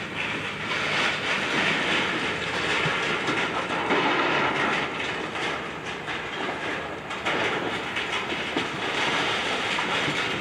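An excavator demolishing a building: a continuous din of crunching, scraping and rattling debris over the machine's running engine.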